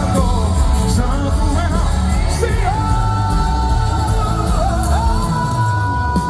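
Live gospel band music with singing over heavy bass, with long held notes in the second half.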